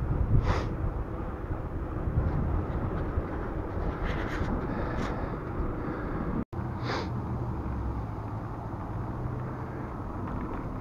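Wind rumbling on the microphone of a camera riding on a moving bicycle, with a few short hisses over it. The sound cuts out for an instant about six and a half seconds in.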